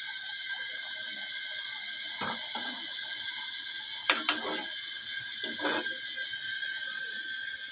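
Luchi dough deep-frying in hot oil in a karai, with a steady sizzle. A metal slotted spoon knocks and scrapes against the pan a few times, loudest about four seconds in.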